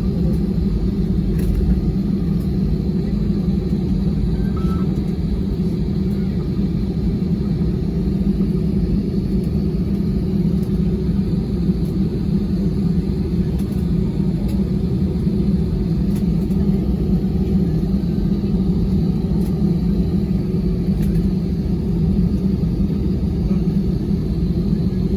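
Steady low rumble inside the cabin of an Airbus A320, the engines and airframe noise heard from a passenger seat, with a faint steady high tone above it.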